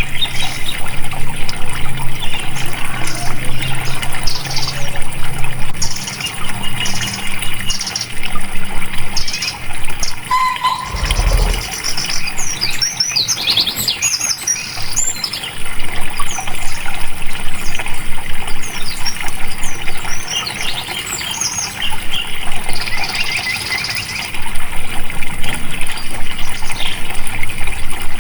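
Flowing water running steadily, with birds chirping over it and one brief low thump about eleven seconds in.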